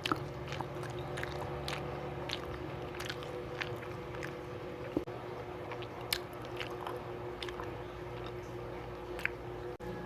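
A person eating and chewing food, with many short mouth clicks scattered throughout, over a steady faint hum.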